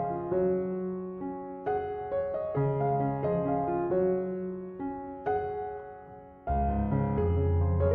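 Soft piano background music, notes struck in slow phrases that ring and fade, with a deeper chord entering about six and a half seconds in.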